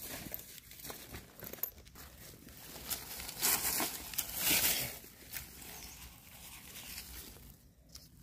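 Dry leaf litter rustling and crackling as hands and a knife dig mushrooms out of the forest floor, loudest in two bursts around the middle.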